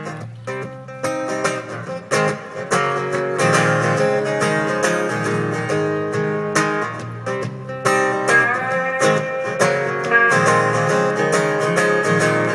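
Acoustic guitars playing the instrumental intro of a country-folk song, with strummed chords and picked notes before the vocal comes in.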